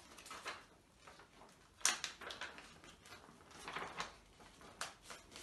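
A sheet of paper rustling and crackling in the hands as it is folded, the corners creased in toward the centre line for a paper airplane, with a sharper crinkle about two seconds in.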